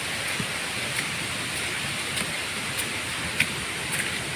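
Steady rush of a waterfall swollen with rainwater, with a few faint ticks.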